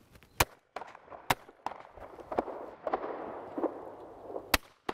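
Shotgun shots at clay targets: two sharp reports within the first second and a half and a third near the end.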